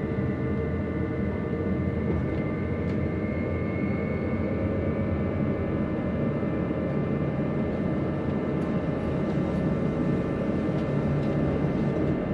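Electric narrow-gauge train on the Bernina line running along the track, heard from inside the carriage: a steady rumble of wheels on rails with a faint steady whine above it.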